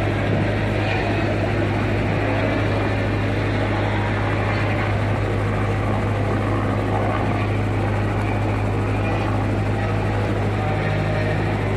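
Steady drone of distant engines, a constant low hum under a dense rushing noise, with no single vehicle passing close.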